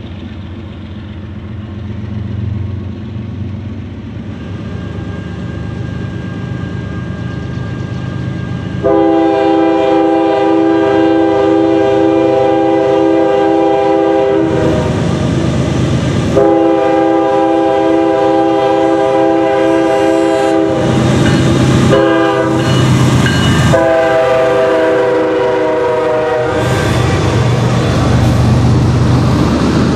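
Norfolk Southern GE ES40DC diesel locomotives approach with a low engine rumble that grows louder. The lead unit's multi-chime air horn then sounds the grade-crossing signal: two long blasts, a short one and a final long one. As the locomotives pass, the heavy rumble of wheels on rail from the passenger cars rolling by takes over.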